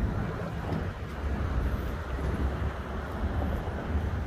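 Wind rushing over the microphone of a rider on a moving bike: a steady low rumble with no clear tones or knocks.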